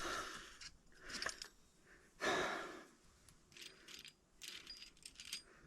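Plastic Barrel of Monkeys toy being handled: a few short rustles and clicks of plastic, the loudest about two seconds in, with smaller ones after.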